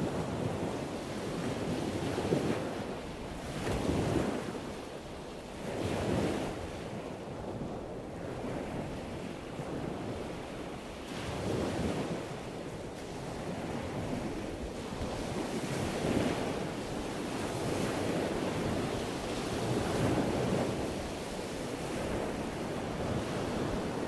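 Sea waves washing, with wind buffeting the microphone; the noise swells and eases every two seconds or so.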